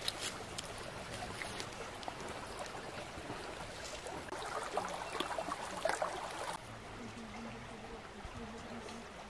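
Steady rush of a flowing stream, with scattered light clicks and rustles of hands peeling potatoes and unwrapping foil; the clicking is busiest just past the middle, and the background turns a little quieter about two-thirds in.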